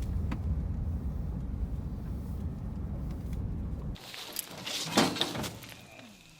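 Low steady rumble of a truck driving, which cuts off about four seconds in. Then comes a short stretch of rustling and clattering, with one sharp knock about a second later.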